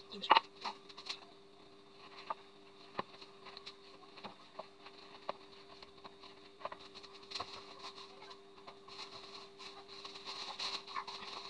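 Wire whisk stirring flour into a dough in a plastic bowl: scattered light taps and scrapes, with a sharp knock near the start as a glass of flour is tipped into the bowl. A steady faint hum runs underneath.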